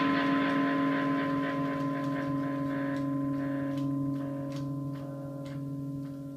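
Amplified electric guitar: a held chord ringing out and slowly fading, with a few light clicks in the second half.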